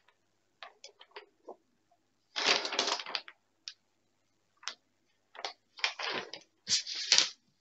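A large sheet of paper being handled and smoothed by hand over a diamond painting canvas: irregular crinkling and rustling, with a longer rustle about two and a half seconds in and a quick run of rustles near the end.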